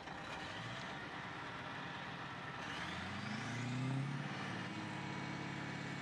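Caterpillar bulldozer's diesel engine running, then revving up about two and a half seconds in: its pitch rises, with a high whine climbing alongside, and then holds at a higher steady speed.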